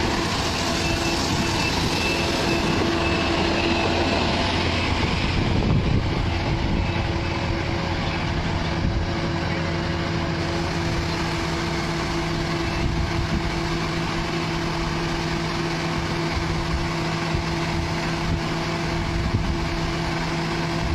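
Tractor engine running steadily. A hissing layer over it in the first six seconds fades out, and a lower steady hum comes in.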